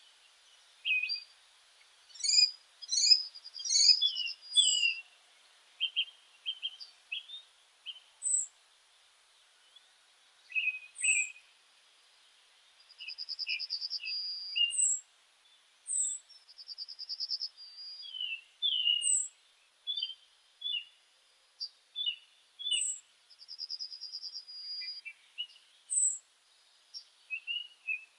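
Several birds calling and singing: short high chirps that drop in pitch, busy lower chirping, and now and then a rapid trill lasting about a second.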